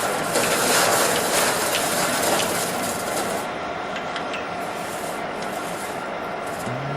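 GP-500VRP slab-processing sawmill machine running, a dense mechanical hiss with scattered clicks and knocks; the hiss is heaviest for the first three seconds or so, then eases slightly.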